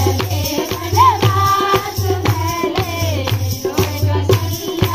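Himachali Pahadi folk song sung by women, with rhythmic hand clapping and percussion keeping the beat.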